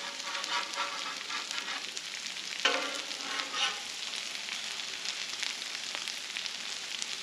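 Hash browns and potato cakes sizzling on a hot Blackstone flat-top griddle: a steady frying hiss, with metal utensils clicking and scraping on the steel now and then and a couple of louder scrapes about three seconds in.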